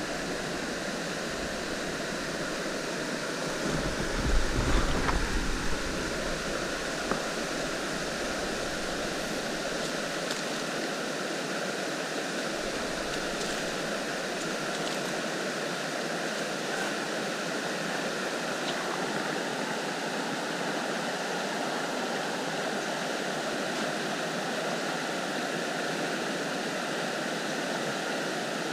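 River water running steadily, a constant rushing hiss of flowing current. About four seconds in, a couple of seconds of louder low rumbling, like wind or handling on the microphone.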